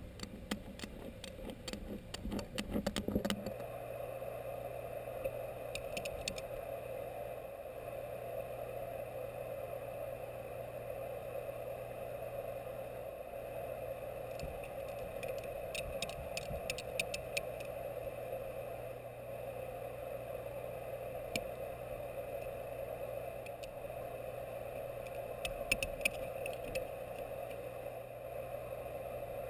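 A steady hum runs underneath, broken by bursts of clicking and rattling. The clatter is heaviest in the first three seconds, with shorter clusters about six seconds in, around the middle and near the end.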